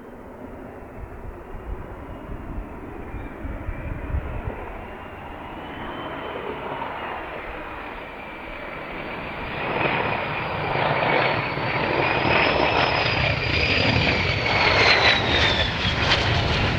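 Jet aircraft engines growing louder as the aircraft approaches, a high turbine whine wavering in pitch above the rumble; the sound swells sharply about ten seconds in and is loudest near the end.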